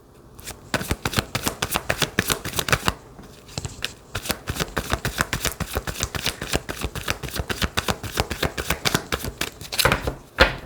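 Tarot cards being shuffled by hand: a fast, continuous run of card taps and flicks, broken by two short pauses about three and four seconds in, with a louder knock near the end.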